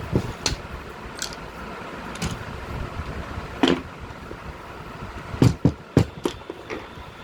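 Irregular clicks and knocks of tools and parts being handled during the repair of a power hammer, a few of them sharper, over a low background rumble.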